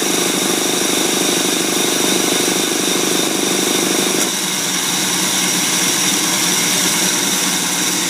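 Single-cylinder four-stroke engine converted to run on steam, running steadily and belt-driving an induction motor, with steam hissing from its exhaust. About four seconds in, its sound drops and changes as the motor is tied to the grid and loads the engine, turning the motor into a generator.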